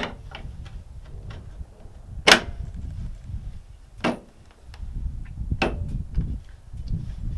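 Sharp plastic clicks and knocks as a Garmin ECHOMAP 43dv display is snapped and worked onto its mount bracket: four louder ones a second or two apart, the loudest about two seconds in, with lighter ticks between. A low rumble runs underneath.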